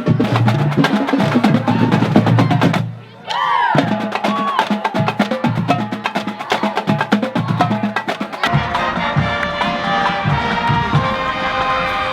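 Music driven by fast drums and percussion, with a brief drop-out about three seconds in. About eight and a half seconds in it changes to held pitched notes over the beat.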